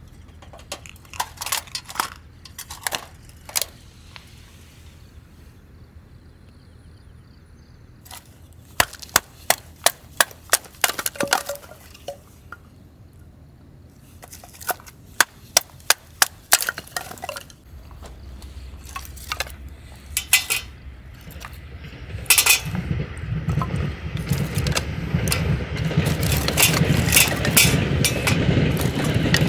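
Sharp clinks and knocks of camp gear being handled, in several short clusters. Over the last third a low rumble builds into a loud passing train.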